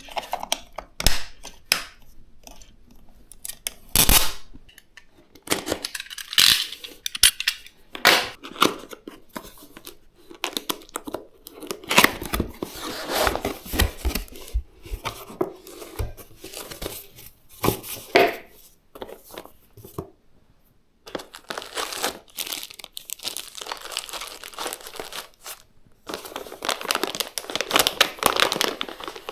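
Graphics card packaging being opened and handled by hand: crinkling, rustling and tearing with sharp clicks and knocks. There is a brief lull about two-thirds in, then denser crinkling near the end.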